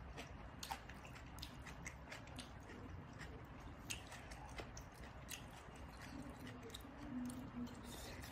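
Chewing of papaya salad and raw vegetables, with many short wet clicks and crackles from the mouth and from fingers picking through the salad. A brief low hum sounds about six to seven seconds in.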